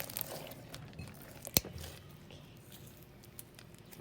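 Packing peanuts crackling and crunching as they are kneaded and crushed into slime by hand, with one sharp snap about one and a half seconds in.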